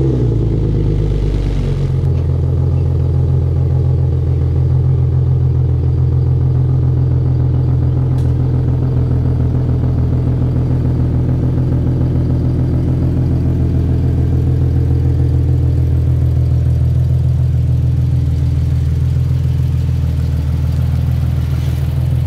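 Infiniti Q50's engine idling right after a cold start, heard at the exhaust tips. The note settles about two seconds in, then holds steady.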